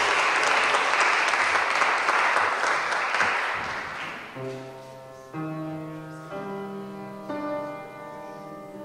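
Audience applause fades out over about four seconds. Then the group's starting pitches sound one note at a time, four entries about a second apart, stacking into a held chord.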